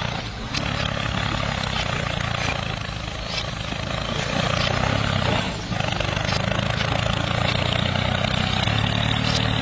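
Toy mini tractor running steadily as it pulls a cultivator, a low engine-like drone that dips briefly twice.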